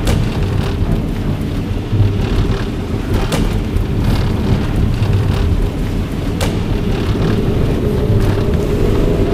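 Steady low rumble of a car driving, heard from inside the cabin: engine and road noise. A few sharp clicks cut through it, roughly every three seconds.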